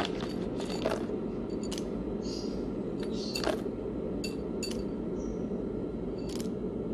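Coffee beans and a metal scoop clinking against a small glass on a kitchen scale: about half a dozen separate light clicks spread over several seconds, over a steady low background hum.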